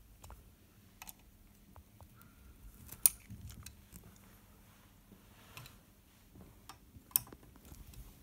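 A long steel hex driver clicking and scraping against screw heads and the metal frame as the turbine mount screws are tightened. It makes a handful of sharp, scattered clicks, the loudest about three seconds in.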